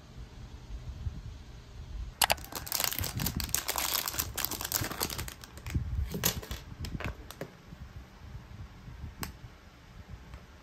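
Clear plastic crinkling for a few seconds as earbud-case packaging is handled. This is followed by scattered clicks and taps of plastic and silicone earbud cases being fitted together.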